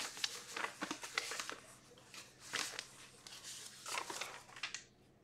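Packaging crinkling and rustling as it is handled, in irregular bursts that stop a little before five seconds in.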